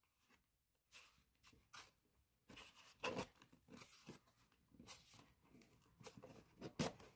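Cardboard box handled by hands: a string of short scrapes, rustles and taps as the flaps are pressed and rubbed, loudest about three seconds in and near the end.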